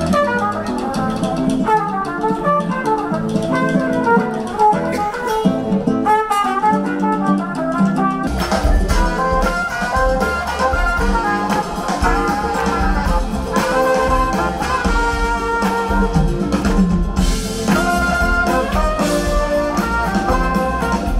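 Live smooth jazz band playing, with guitar and keyboards over a drum kit. About eight seconds in, the bass and drums come in much heavier and the full band plays on.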